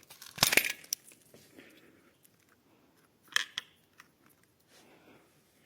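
Sharp clicks and scraping from a wall socket being opened up: a loud cluster about half a second in, and a second, shorter one about three seconds later.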